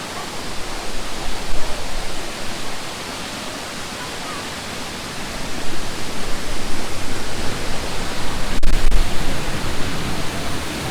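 Waterfall rushing: a steady, dense roar of water falling with force, growing louder from about six seconds in. A short low rumble comes near the end.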